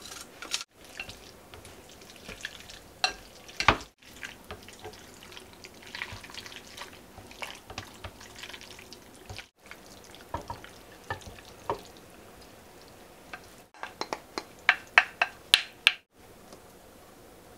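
Cooked udon noodles being tipped into a glass bowl and tossed in chili sauce with wooden chopsticks: wet squishing of the noodles with light clicks of utensils against the glass. Near the end there is a quick run of sharp clicks and scrapes as a spoon scoops the noodles out of the glass bowl.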